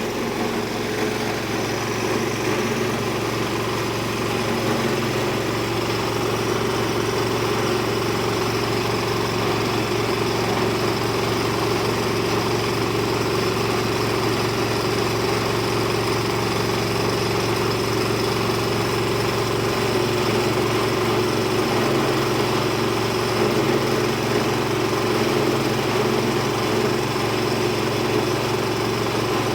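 Multi-purpose chopper-grinder machine running steadily on its small engine, with an even hum and no change in speed or load.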